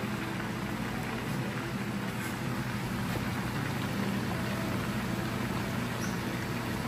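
Oil sizzling steadily in a pot of frying chicken, over a steady low hum.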